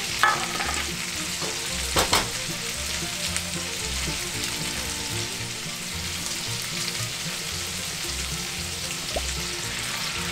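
Food frying in oil in a frying pan, a steady sizzle, with a few sharp knocks, the loudest about two seconds in, as a spatula moves the food around the pan.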